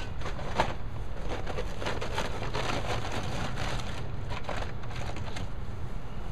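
Crackly rustling and scraping from dry mortar mix being scooped out of its bag, dense for the first five seconds or so, then thinning out. A steady low rumble sits underneath.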